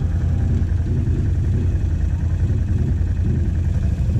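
ATV engine idling steadily close by, with other four-wheelers running across the field, their engine note rising and falling a few times.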